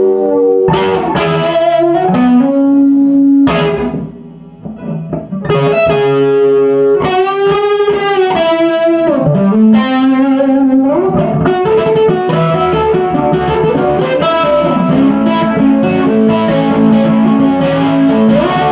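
1959 Airline Town and Country Deluxe electric guitar played through an amplifier: single notes and chords, some of them bent in pitch, with a short pause about four seconds in.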